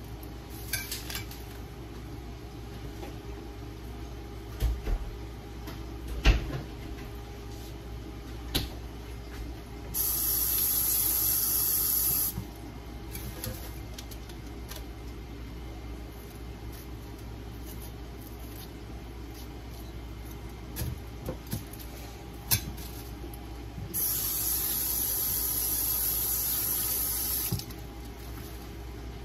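Kitchen tap turned on and left running twice, each time for two to four seconds, starting and stopping abruptly. Scattered knocks and clicks of kitchen handling fall in between, over a low steady background.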